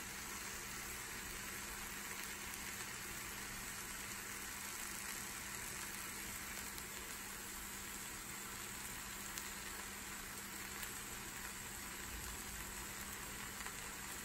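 Faint, steady sizzling of sautéed quinoa with a little water added, cooking in a stainless steel pan over medium heat.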